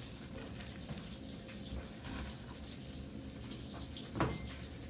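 Faint kitchen handling sounds as salad is arranged on a serving plate, with a light knock about four seconds in.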